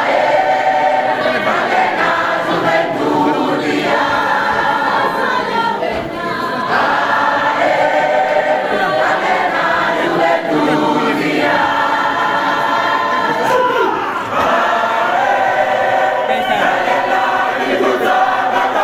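Mixed choir of women's and men's voices singing a gospel worship song in harmony, in phrases with brief breaks between them.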